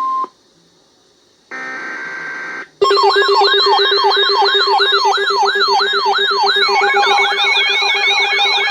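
Electronic emergency-alert signal. A steady alert tone cuts off just after the start, followed by a short pause and a brief chord of tones. Then a loud synthesized siren-like alarm begins: fast repeating pitch sweeps, about two and a half a second, over a steady low tone, growing thicker about seven seconds in.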